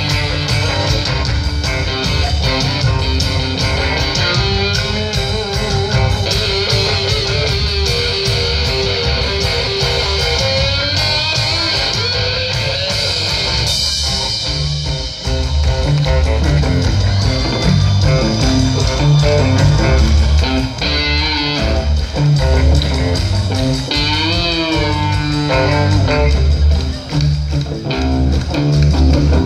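Live rock band playing an instrumental stretch with electric guitars, bass and drums over a PA. The band drops out briefly about halfway through, then comes back in harder and louder with heavy drums and bass.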